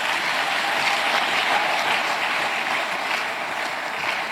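Congregation applauding, a steady dense clapping that tapers off near the end.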